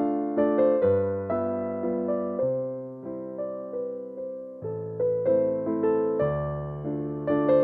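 Piano music: notes and chords struck and left to ring as they fade, at a slow, gentle pace, with a low bass note under each change of harmony.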